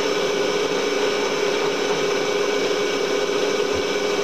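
Vertical milling machine running with a disc cutter cutting into a part as the rotary table slowly turns it: a steady machine hum with one strong mid tone over hiss.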